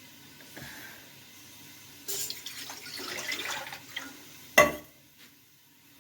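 Water running from a tap for about two seconds, then a single sharp clank, the loudest sound, about four and a half seconds in.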